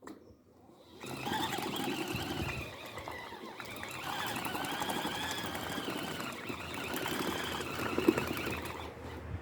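Mini washing machine running its wash cycle, starting about a second in: the motor whines, rising and falling in pitch, over the churn of water and clothes, with one sharp knock near the end.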